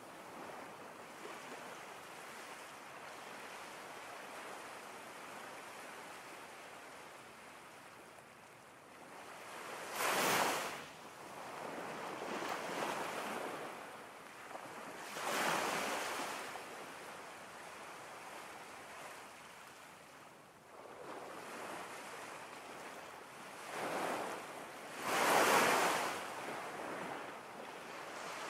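Ocean surf: a steady rushing wash with four louder wave surges, the last two close together near the end.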